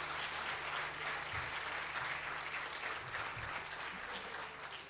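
A concert audience applauding, the clapping easing off slightly toward the end.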